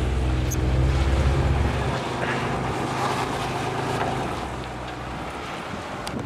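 Vehicle engine drone with road and wind noise while driving, stronger for the first two seconds and then easing off.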